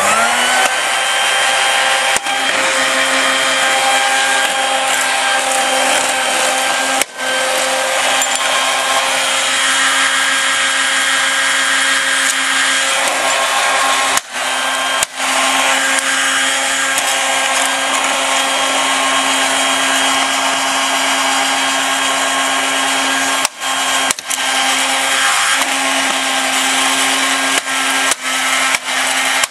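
Red Dirt Devil handheld vacuum's motor switching on and spinning up to a steady, high whine, then running continuously. The sound dips out briefly several times, most often in the last few seconds.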